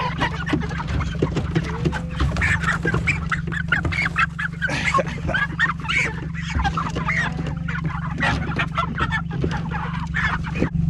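Broiler chickens squawking and clucking in alarm as they are caught by hand and put into plastic crates, with frequent short knocks and rustles, over a steady low hum.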